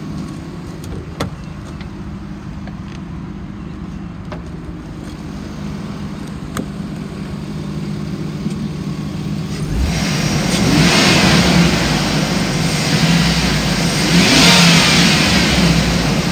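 2005 Hummer H2's 6.0-litre V8 idling steadily, then revved up twice, about ten seconds in and again a few seconds later. It revs up cleanly, and the motor sounds healthy.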